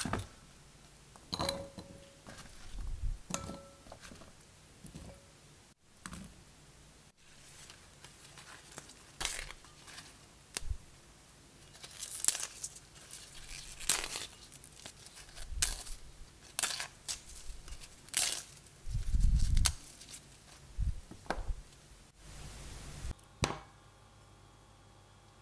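Kohlrabi leaves being pulled from their stalks and handled over a bowl, with tearing and crinkling of fresh leaves. Near the start a kitchen knife chops through kohlrabi on a wooden board. A dull thump comes about three quarters of the way through.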